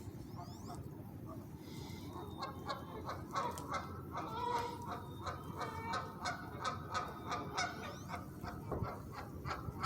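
Geese honking: a run of short, repeated calls that starts a couple of seconds in and keeps coming, over a steady low background rumble.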